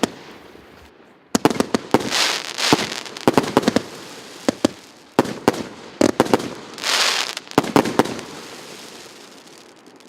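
'Crystal Heart' RS175 fountain-salute firework cake (1.2-inch) firing: clusters of sharp cracks and crackling with hissing sprays between them, loudest around seven seconds in. It dies away near the end.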